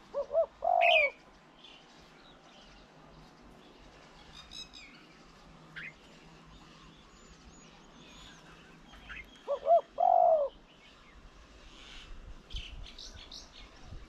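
A dove cooing twice, about nine seconds apart. Each phrase is two short notes followed by a longer drawn-out note. Faint high chirps of small birds come in between.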